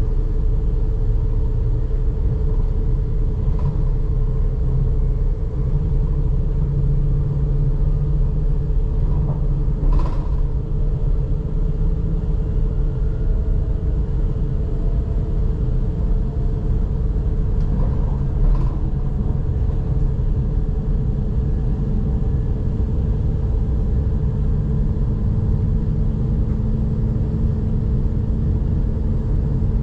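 Electric S-Bahn train running, heard from inside the carriage: a steady rumble of wheels on track with a constant hum over it. A few sharp clicks come through, the clearest about ten seconds in.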